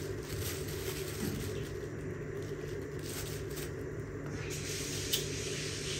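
Plastic bag of salad rustling and crinkling in soft bursts as it is handled, over a steady low hum, with one sharp click about five seconds in.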